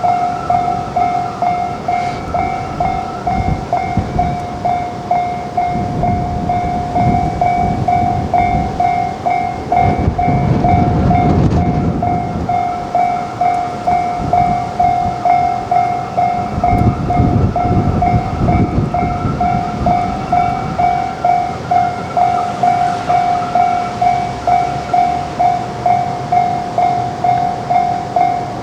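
Japanese level crossing warning bell ringing its repeated 'kan-kan' at about two strikes a second, while a train runs through the crossing; the train's rumble and wheel noise swell in the middle and fade out a few seconds before the end, leaving the bell ringing on.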